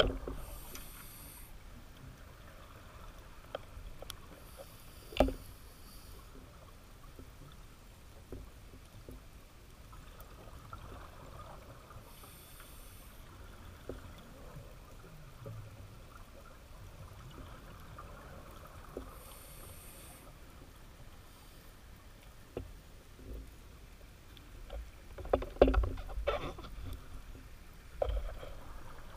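Underwater ambience through a GoPro's housing, with a scuba diver's exhaled regulator bubbles hissing every six to eight seconds and scattered sharp clicks. A single knock comes about five seconds in, and a cluster of louder knocks and thumps comes near the end as a tiger shark passes right against the camera.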